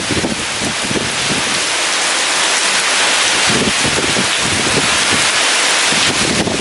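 Heavy rain falling in a steady dense hiss, with strong wind gusting in irregular low rumbling swells.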